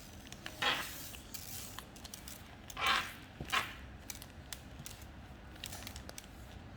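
Hands handling slime-making materials: small clicks and scrapes, with three short rustles, about a second, three seconds and three and a half seconds in.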